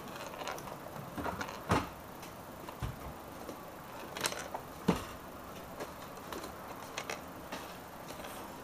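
Irregular light clicks and knocks, with two louder knocks, one just under two seconds in and another about five seconds in.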